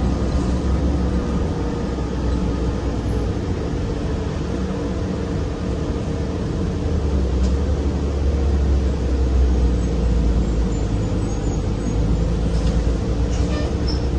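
Cabin noise of a 2008 Orion VII NG CNG bus under way, heard from inside at the rear: its Cummins Westport ISL G natural-gas inline-six engine and driveline running with a steady low rumble and hum, growing louder about halfway through.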